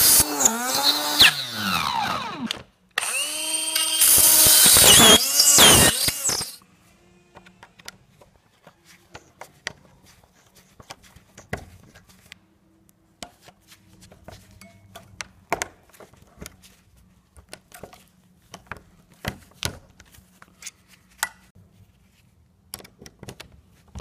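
Hand-held rotary tool drilling into a euro-profile lock cylinder through its keyway, a loud high whine whose pitch dips and recovers as the bit bites. It breaks off briefly once and stops about six seconds in. After that come scattered clicks and scrapes of a metal screwdriver worked inside the drilled cylinder.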